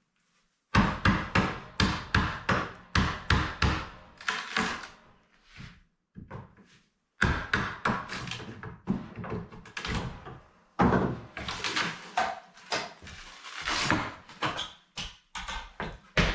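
A run of sharp knocks and thuds of hard objects striking, coming several a second in bursts with short pauses between.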